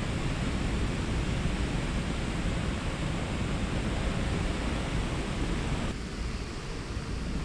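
A pedestal fan on full speed blows onto a microphone inside a RØDE Blimp windshield, giving a steady rushing noise with a low rumble. About six seconds in, the blimp is swung end-on to the fan and the upper part of the noise thins out.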